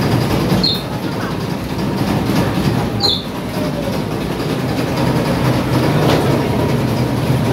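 Bakery machinery running with a steady, loud mechanical rumble. Two brief high squeaks come through, one just under a second in and one about three seconds in.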